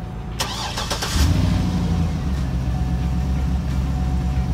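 A 2008 GMC Denali's 6.2-litre LS V8 being started after a tune-up with new spark plugs and plug wires: a short burst of starter cranking, then the engine catches about a second in and settles into a steady idle.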